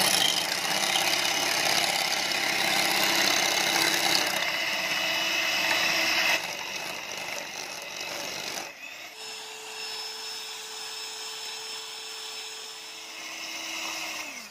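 Electric hand mixer beating eggs in a glass bowl, whipping them into a pale froth. A loud, noisy whir for about the first six seconds, quieter until a break at about nine seconds, then a steadier motor hum whose pitch drops near the end.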